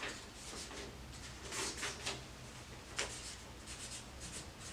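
A pen writing on paper: several quick bunches of short strokes with brief pauses between them.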